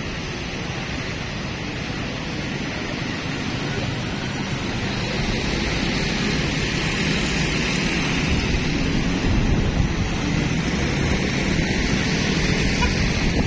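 Steady vehicle running noise with wind buffeting the microphone, growing louder as the vehicle gets under way and picks up speed.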